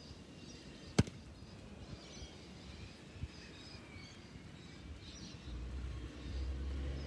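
Quiet outdoor ambience with faint bird chirps, one sharp knock about a second in, and a low rumble coming up near the end.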